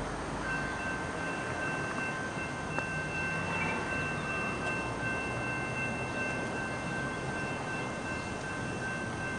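Railroad grade-crossing warning bell ringing steadily, starting about half a second in, signalling an approaching train, over a background of road traffic.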